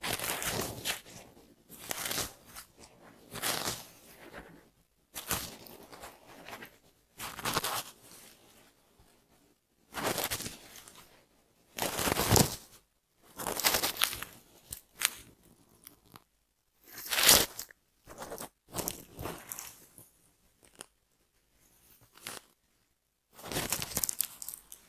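Scratching and scraping through hair at the scalp to loosen dandruff. It comes as short rasping bursts every second or two, with quiet pauses between.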